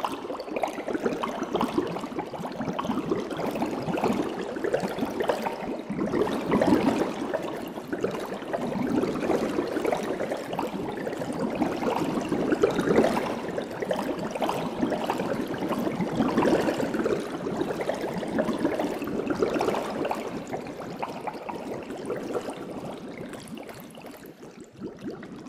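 Aquarium water bubbling, a dense crackling hiss of air bubbles and moving water that fades near the end.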